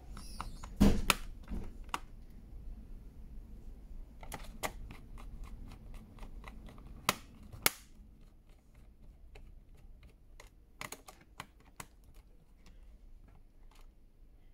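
Scattered plastic clicks and snaps as a laptop's plastic bottom panel is pressed down onto the chassis. The loudest click comes about a second in, two sharp ones follow around seven seconds, and a run of faint small clicks comes later.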